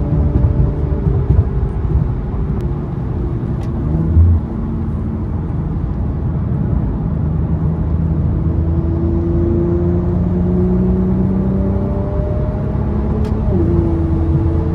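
Infiniti Q50 with aftermarket intakes driving under way, the engine note climbing gradually through the gear and then dropping sharply at an upshift near the end. A brief low thump about four seconds in.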